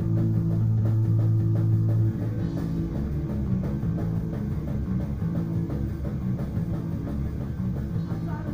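Live rock band playing instrumentally with electric guitars and a drum kit. A loud held low chord rings for about two seconds, then the band drops into a driving rhythmic riff.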